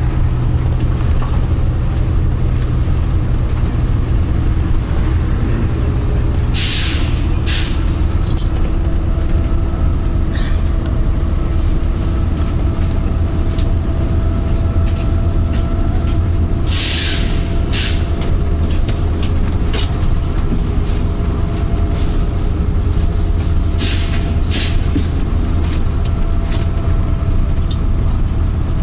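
Volvo B9TL double-decker bus on the move, heard from inside: the diesel engine drones steadily while short 'pshhh' bursts of air hiss come three times, about seven to ten seconds apart, the last doubled. The hiss comes more often than is usual for these buses.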